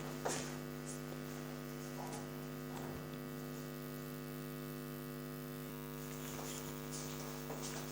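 Steady electrical mains hum, a buzzing drone with many even overtones, with a few faint small ticks over it.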